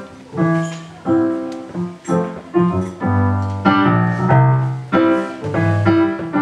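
Digital piano played with both hands: an instrumental intro of struck chords, two to three a second, each ringing and fading before the next.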